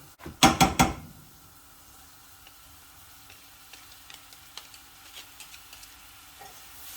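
Flour and butter roux cooking in a frying pan: three or four loud knocks of a utensil against the pan about half a second in, then a quiet sizzle with light scrapes and taps of stirring.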